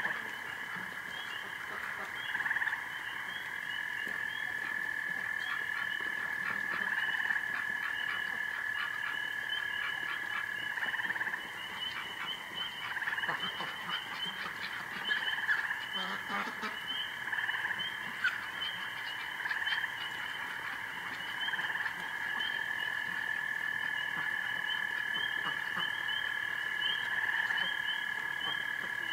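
Chorus of frogs calling at night: a long steady trill that stops and starts again, over rows of rapid repeated higher-pitched calls, with scattered clicking calls in the middle.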